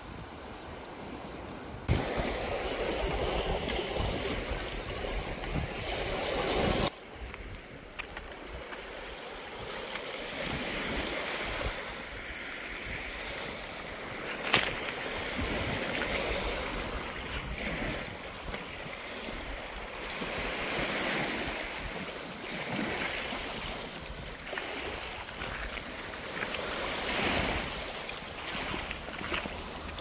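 Small waves washing up on a pebble beach, with wind on the microphone. One sharp click about halfway through.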